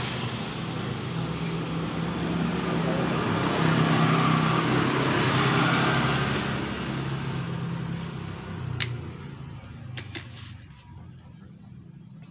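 A small engine running steadily, then fading out about eight to eleven seconds in. Near the end there are a few sharp metallic clicks as the throttle body's parts are handled.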